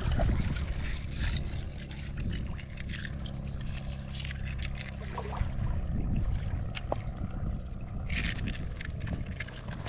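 A motorboat running steadily under way: a low engine hum, with water splashing and scattered knocks over it.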